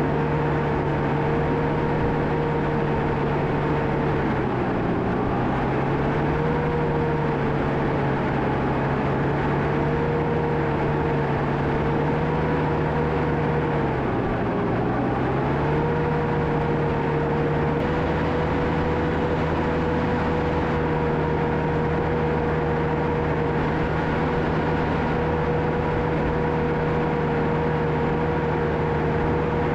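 John Deere 650K crawler dozer's diesel engine running steadily at work. The engine pitch sags briefly twice, once near five seconds in and again around fifteen seconds, each time recovering, as the engine pulls down under blade load.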